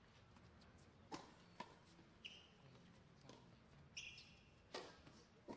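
Tennis ball struck by rackets and bouncing on a hard court during a rally: about seven sharp knocks spaced roughly half a second to a second apart, with two short high squeaks among them.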